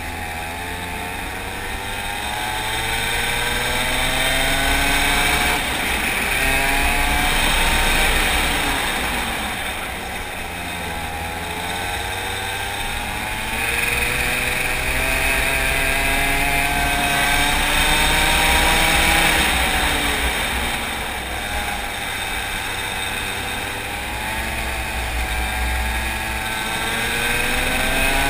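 Racing go-kart engine at full throttle, its pitch climbing steadily for several seconds and then dropping off, over and over as the kart accelerates down the straights and lifts for the corners, with wind rumbling on the onboard microphone.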